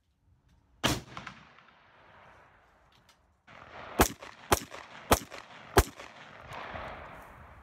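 Rifle shots: a single shot about a second in that trails off slowly, then four shots in quick succession a little over half a second apart, each leaving a rolling echo.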